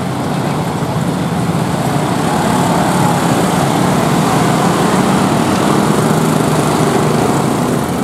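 A crowd of motorcycles and motor scooters running and accelerating across a railway level crossing: a dense, steady din of small engines that swells a little in the middle.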